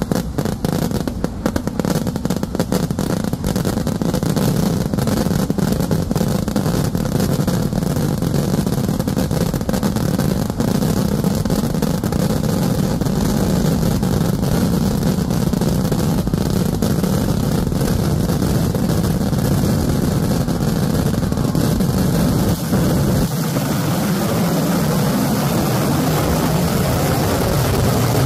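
Festival fireworks going off in a continuous barrage. Explosions follow so closely that they merge into one steady, loud roar. The crackle is thickest in the first dozen seconds or so, then evens out into a deep continuous rumble.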